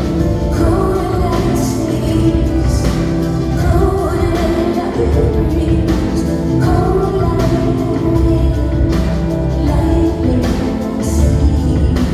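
A band playing live music in a concert hall, with a strong bass and regular drum hits, and a woman singing over it.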